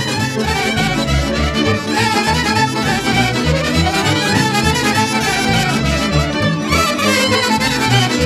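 Romanian folk band playing an instrumental break between sung verses: a busy melody over a steady, pulsing bass beat.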